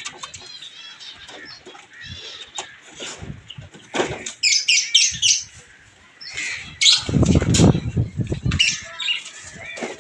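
Small cage birds chirping in quick high bursts, with a loud flurry of wingbeats about seven seconds in.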